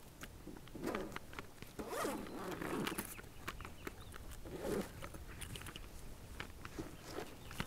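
Zipper of a padded camera shoulder bag being pulled open in three strokes: a short one about a second in, a longer one between two and three seconds, and another near five seconds. Light handling clicks follow as the flap is lifted.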